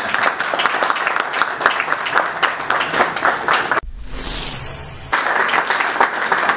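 Audience applauding, dense irregular hand claps. About four seconds in the clapping breaks off for roughly a second and a half, leaving only a low rumble, then resumes.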